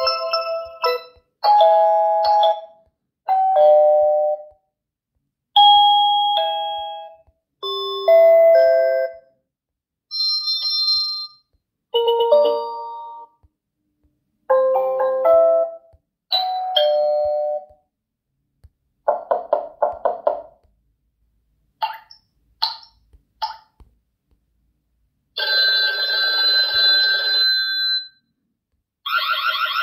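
TP-Link Tapo H200 smart hub playing its selectable doorbell chimes and siren tones one after another: a string of short chime and melody clips, a second or two each with pauses between. Near the end comes a harsh buzzing tone, then a fast pulsing alarm.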